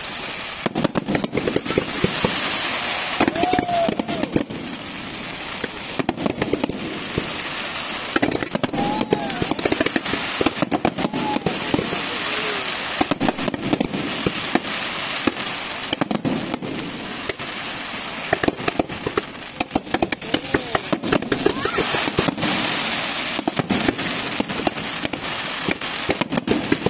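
A fireworks display going off: a rapid, nearly continuous series of sharp bangs and crackles, with people's voices underneath.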